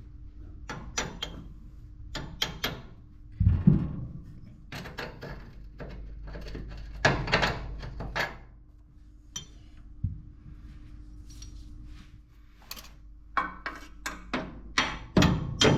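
Irregular knocks, clicks and metallic clanks of tools and removed suspension parts being handled and set down, with one heavy thump about three and a half seconds in. A faint steady hum runs underneath.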